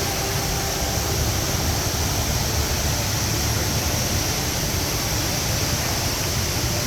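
Steady rushing of the Rain Vortex, a large indoor waterfall, continuous with no breaks.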